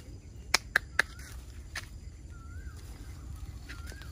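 Sharp snaps in a tree's branches, three close together about half a second to a second in and a fainter one soon after, as a baby monkey climbs through them. Short calls that rise and then fall in pitch come three times, about a second apart.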